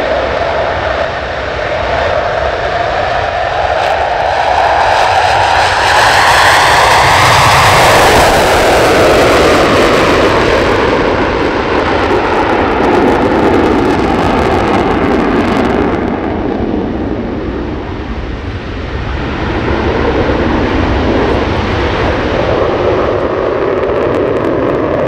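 CF-18 Hornet's twin jet engines in afterburner during a takeoff and steep climb: loud and continuous, its pitch rising and then falling away about eight seconds in, fading briefly near the end and swelling again.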